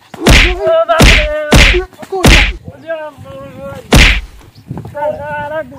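Loud blows of a beating: five sharp whacks, four in quick succession over the first two and a half seconds and a last one about four seconds in, with a voice crying out between them.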